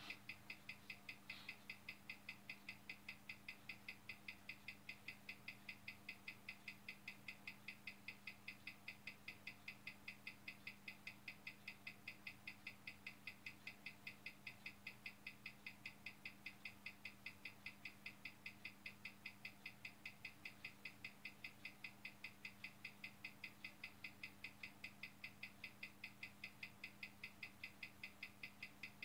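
Hamilton caliber 756 watch movement ticking steadily, about five ticks a second, over a faint steady hum, as its rate is checked on a timing machine after regulation.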